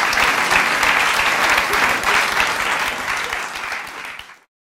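Audience applauding. The clapping fades out near the end and gives way to silence.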